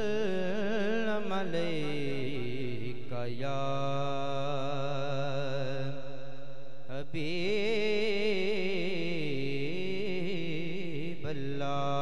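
A male voice sings a naat (Urdu devotional song) through a microphone in long, ornamented held notes with a wavering vibrato. A steady low drone runs beneath the voice. The phrases break briefly about three seconds in and again around seven seconds.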